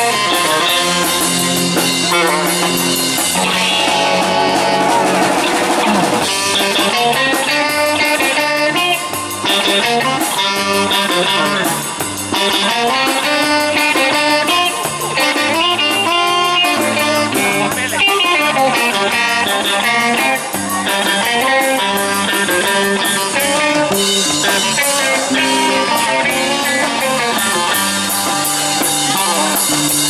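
Live rock band playing: electric guitar, saxophone, electric bass and drum kit together.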